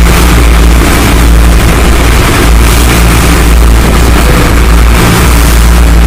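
Engine of a motorized outrigger boat (bangka) running loud and steady under way, heard from inside the passenger cabin: a deep, even drone with a few low steady tones, under a constant rushing noise.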